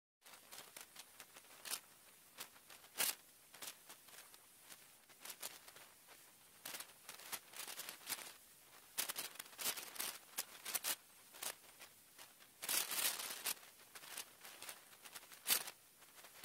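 Wood campfire crackling quietly, with irregular sharp snaps and pops over a faint hiss.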